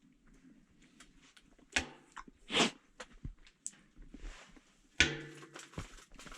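Scattered small knocks, clicks and rustles of things being handled at close range, with brief louder rustling sweeps about two, two and a half and five seconds in.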